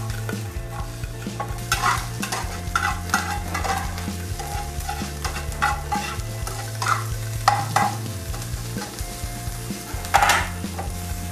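Chopped onion, pepper, garlic and freshly added ginger sizzling in a frying pan on a gas burner while a spoon stirs them, with irregular scrapes and knocks against the pan, the loudest near the end. The ginger is frying until fragrant.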